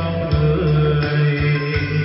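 Karaoke backing music, guitar over a heavy, steady bass, playing loudly through a Sansui SG3-15 portable trolley karaoke speaker.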